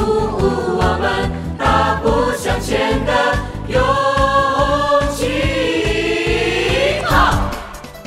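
Voices singing a Chinese song together over a backing track with a steady beat, with a long held note in the second half; the music drops in level near the end.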